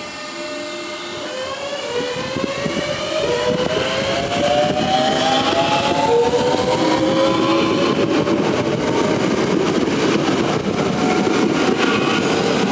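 Southeastern Class 465 and Class 466 Networker electric multiple units pulling away, their traction motors whining in several tones that climb steadily in pitch as the train accelerates. About four seconds in the sound grows louder, as wheel and rail noise with rapid clicks builds up while the carriages pass close by.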